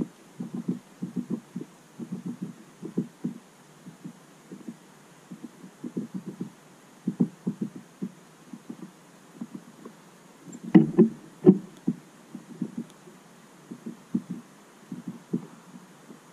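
A small finch pecking seed at a tube feeder port: dull low knocks in quick, irregular clusters. A louder, sharper run of knocks comes a little past the middle.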